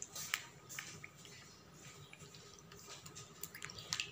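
Small water splashes and drips in a plastic tub of goldfish swimming against a hand: faint, scattered soft ticks, with a quick cluster near the end.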